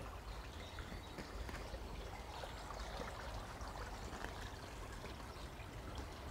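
Faint outdoor background noise: a steady hiss over a low rumble, with a few light ticks and scuffs.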